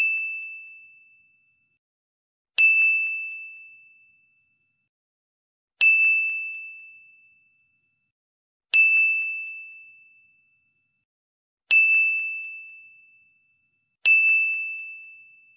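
Bright bell-like ding sound effect, a single high ringing tone, heard five times roughly every three seconds. Each ding starts sharply and fades out over about a second. Another ding is already fading at the start.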